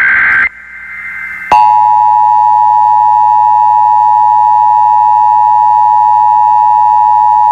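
Emergency Alert System test signal: a burst of warbling SAME header data tones cuts off about half a second in. About a second later a loud, steady EAS attention tone starts and holds.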